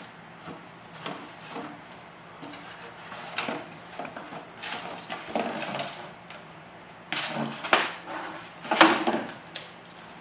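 A puppy pushing and knocking an empty plastic gallon jug about on a wooden floor: irregular hollow plastic bumps and clatters, loudest in a cluster about seven to nine seconds in.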